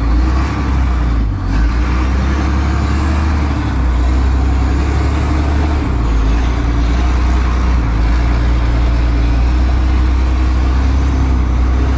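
International DT466 inline-six diesel of a straight-piped Blue Bird school bus idling steadily just after a cold start, a low, even rumble.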